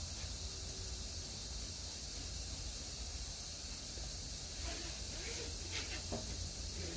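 Steady outdoor background hiss with a low rumble. Faint, muffled voice-like sounds and a couple of light taps come in during the second half.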